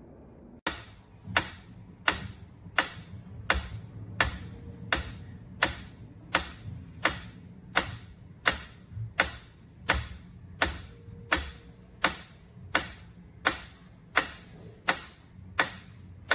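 A sharp tick repeating at a steady pace, about every 0.7 seconds, some twenty times, over a faint low hum.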